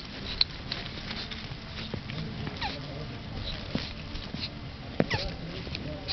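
Mating turtle calling: short squeaky cries that fall in pitch, one about two and a half seconds in and another near five seconds, among sharp clicks.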